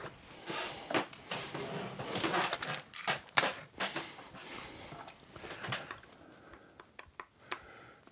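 Small RC car parts being handled on a workbench: a run of light clicks, taps and rustles, growing sparser near the end.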